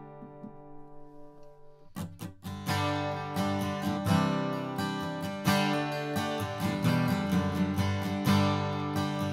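Gibson J-45 Vintage acoustic guitar strummed with a pick: a chord rings out and fades, then strumming starts again about two seconds in and carries on in a steady rhythm of chords.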